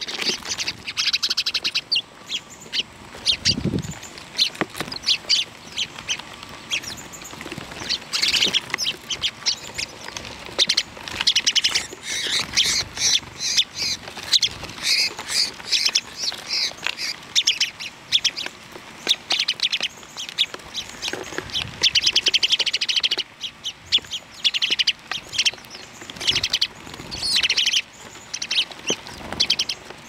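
A flock of small birds chirping and chattering, many short high calls overlapping in busy runs.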